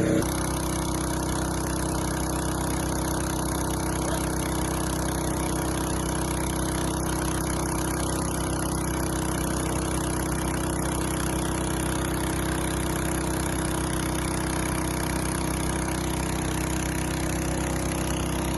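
An engine running steadily at a constant speed, its note unchanging throughout.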